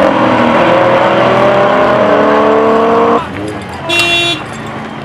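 Car engine running hard, its pitch rising steadily as it pulls, then cutting off abruptly about three seconds in; about a second later a car horn gives one short toot.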